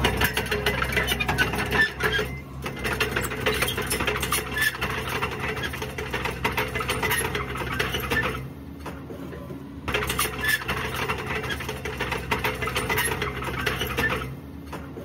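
Komatsu 130 excavator running: its diesel engine hums steadily under a dense, rapid metallic clatter. The clatter breaks off about eight and a half seconds in, returns a second and a half later, and fades near the end.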